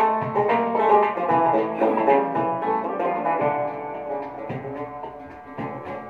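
Oud played solo: a quick instrumental run of plucked notes that grows quieter in the second half, with a few sharper strikes near the end.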